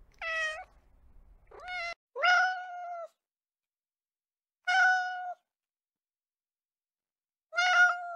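Cat meowing: five separate meows, each under a second, spaced unevenly, most of them holding a steady pitch before they stop.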